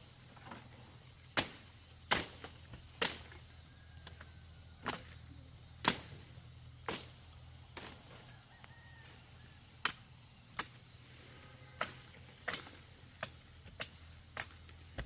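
Repeated sharp blows of a hand tool striking wood or bamboo, about fifteen strikes at an uneven pace of roughly one a second.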